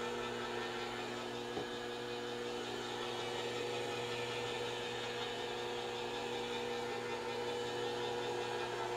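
Sunbeam Mixmaster Heritage Series stand mixer running steadily, a constant motor whir with several steady tones, its twin beaters whipping butter, cream cheese and powdered sugar into frosting in a stainless steel bowl.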